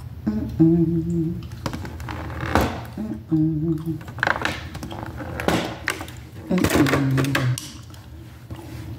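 A woman hums three short, level notes while handling a clear plastic blister tray of tools. The tray clicks and knocks sharply several times between the hums.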